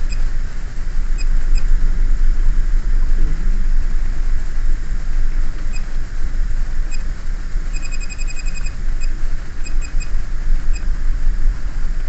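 Short electronic key beeps from a Tokyo Keiki gyro compass panel unit as its buttons are pressed: single beeps at irregular moments, and a quick run of about ten beeps around two-thirds of the way in, as when a key is held down. Under them runs a steady low hum.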